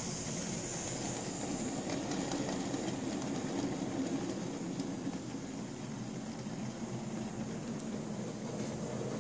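Hornby OO gauge Class Q1 model locomotive and its goods vans running along model track: a steady rumble from the electric motor and the wheels on the rails.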